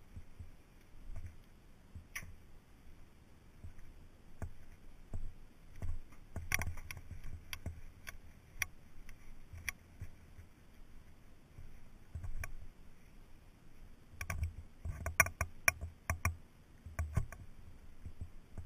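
Camera handling noise: irregular sharp clicks and light knocks with dull low thumps as the camera and helmet are moved about. They come in clusters about six to nine seconds in and again from about fourteen seconds.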